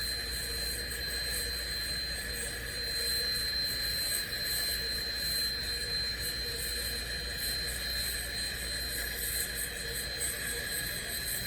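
Air-acetylene turbo torch flame burning steadily with an even hiss while it heats a copper joint that is not yet hot enough for the brazing rod to flow.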